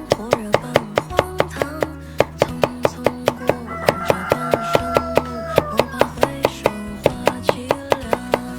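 Kitchen knife chopping rapidly and evenly on a cutting board, about five or six strokes a second, cutting potatoes into shreds for stir-frying. Guitar background music plays under it.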